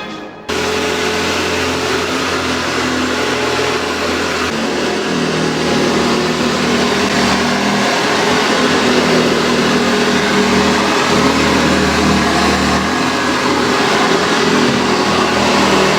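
Hoover 1060 upright vacuum cleaner running, its motor and fan making a loud, steady whir with a hum. It starts abruptly about half a second in.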